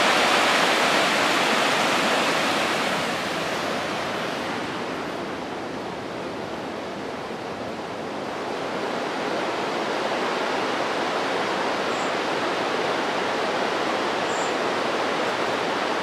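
Steady rushing of a mountain river cascading over rock pools, with two brief faint high chirps near the end.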